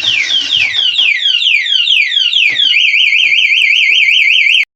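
Motorbike anti-theft alarm siren cycling through its tones: quick falling sweeps, about three a second, then a fast up-and-down warble. It cuts off suddenly near the end.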